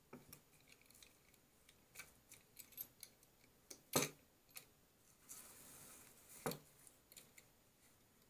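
Small metal clicks and clinks of a nut and washer being handled and fitted onto a steel threaded rod and corner bracket, with a louder clack about four seconds in and another about six and a half seconds in, and a brief scraping rasp just before the second.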